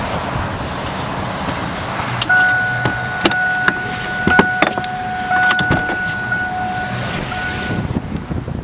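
Strong storm wind rushing over the microphone during a tornado. A steady high tone starts about two seconds in and runs until near the end with two brief breaks, over scattered sharp clicks and knocks.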